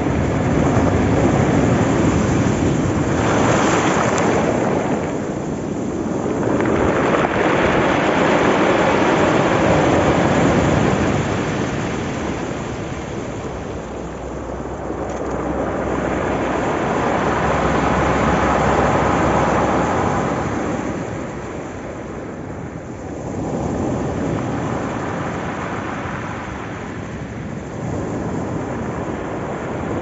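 Rough sea waves breaking at the shore and surf washing up over a pebble beach, a continuous rush that swells and fades in long surges several seconds apart.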